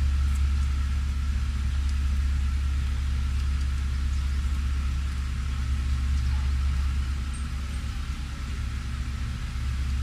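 A car engine idling: a steady, unchanging low hum.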